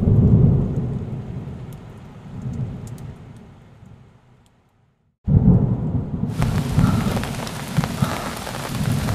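Thunder: a deep rumble that breaks in suddenly and dies away over about five seconds. Then a second rumble, and from about six seconds in, heavy rain hissing down steadily.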